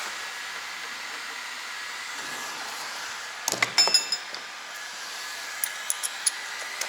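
Metal hand tools clinking against metal several times in a quick cluster about halfway in, then a few lighter ticks near the end, over a steady hiss. This is work on a rusted stabilizer link nut.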